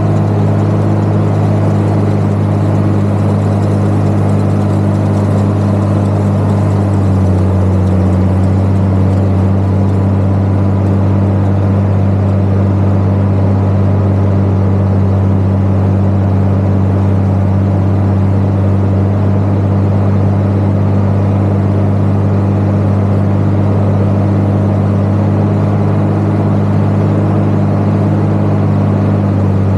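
Valtra 8400 tractor's diesel engine running steadily under load, heard close to its exhaust stack, working a precision forage chopper in the field. The engine note drops slightly about seven seconds in and then holds steady.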